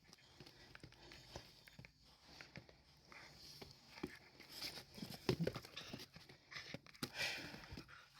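A puppy playing and nipping: faint scuffling and rustling with small clicks, and a few short, louder sounds around the middle and again near the end.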